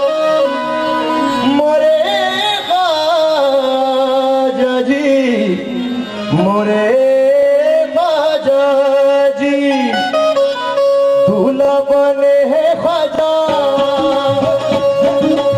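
Live qawwali music: a male singer's long, sliding, ornamented vocal line over a harmonium holding steady notes. Hand-drum strokes grow busier near the end.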